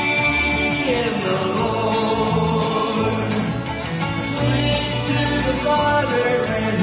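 A live country song with singing over backing music and a steady low beat, recorded on a cell phone.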